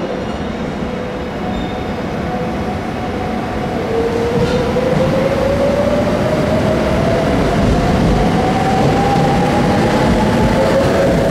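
JR West 681 series electric multiple unit pulling away from a station platform. A steady electrical hum gives way, about four seconds in, to a whine that rises steadily in pitch from the inverter-driven traction motors as the train accelerates. The rumble of the passing cars grows louder at the same time.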